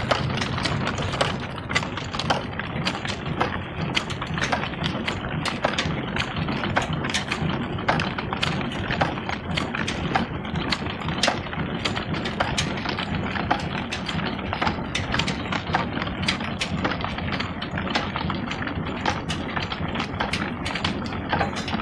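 Old Ruston Hornsby diesel engine running steadily, with a constant clatter of sharp mechanical ticks and the belt-driven line shaft turning.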